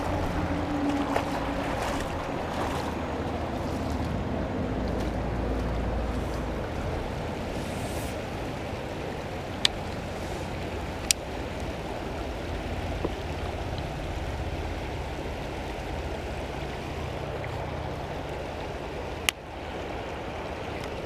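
Shallow creek water running over rocks, a steady rushing noise, with a few sharp clicks about ten and eleven seconds in and again near the end.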